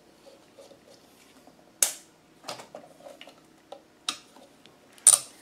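Sharp plastic clicks and knocks from a heater blower motor being gripped and worked loose in its plastic blower housing by hand: a handful of separate clicks, the loudest near the end.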